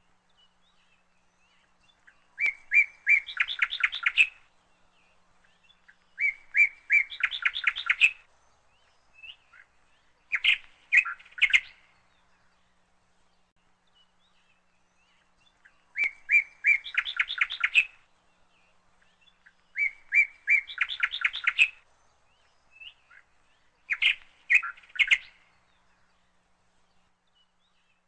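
A small songbird singing. Each phrase lasts about two seconds: a few short repeated notes running into a fast trill. The phrases come in groups of three, with a pause of several seconds between groups, and the group is heard twice.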